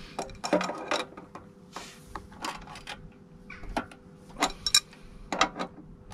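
Irregular metallic clicks and clanks of slip-joint pliers on the fittings of a hand-operated hydraulic pressure test pump, as a leaking joint is tightened under about 350 psi. The sharpest knocks come in a cluster a little past the middle and again near the end.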